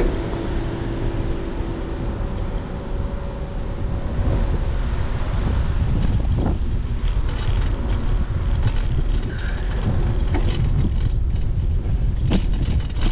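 Wind noise on a GoPro's microphone as a bicycle rolls along a paved street, with road rumble underneath. From about six seconds in, the bike rattles over bumps in the pavement: a run of sharp clicks and knocks. A turning car's engine hum fades out in the first couple of seconds.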